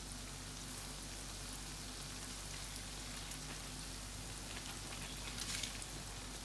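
Croissant-shaped yeast doughnuts deep-frying in a pan of hot oil: a steady sizzle of small bubbles, with a few louder crackles near the end.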